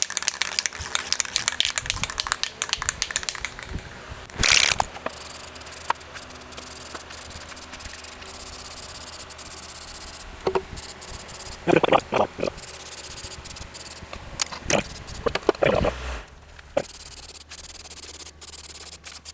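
Aerosol can of black high-heat spray paint being sprayed onto a metal burner pan, hissing in passes. There is rattling and handling noise in the first few seconds, and a few louder bursts.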